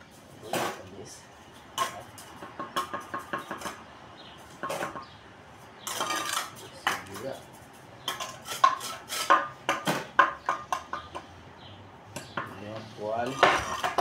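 Bricklaying: a metal trowel tapping and scraping on hollow clay bricks and mortar, an irregular run of sharp clinks and scrapes.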